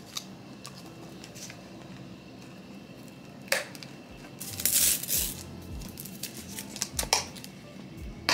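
A clear plastic lid is snapped and pressed down onto a plastic cup of iced coffee, with a few sharp plastic clicks and a loud crackle of plastic about halfway through. Near the end come more clicks as a straw is readied to go through the lid.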